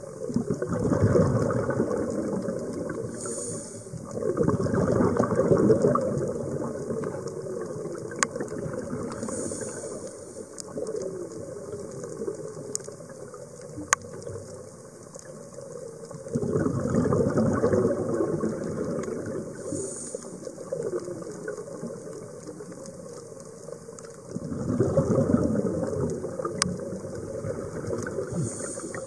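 Scuba regulator exhalations heard underwater: four gurgling rushes of bubbles, each lasting a few seconds, with quieter stretches between them. A few sharp single clicks come in between the rushes.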